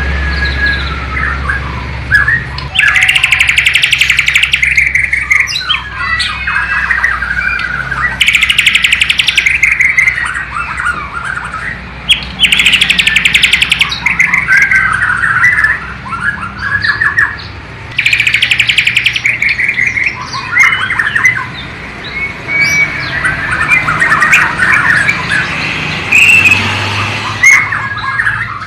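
A Bornean white-rumped shama (murai batu) singing a long, varied song of whistled phrases that mimics sikatan londo (nightingale) song. Four times it breaks into loud bursts of very rapid repeated notes, each about a second long.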